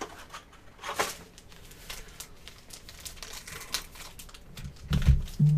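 Foil-wrapped trading card packs crinkling as they are handled and shuffled in the hands, with a few soft low bumps near the end.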